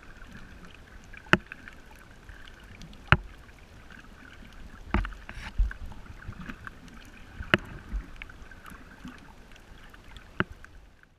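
Muffled underwater wash heard through a submerged camera while snorkeling over a reef, with sharp clicks and knocks every second or two.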